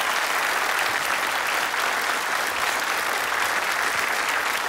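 Studio audience applauding steadily, dense clapping from many hands.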